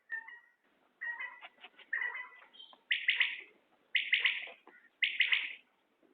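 Common quail calling: softer chirps at first, then three loud, quick, pulsed calls about a second apart.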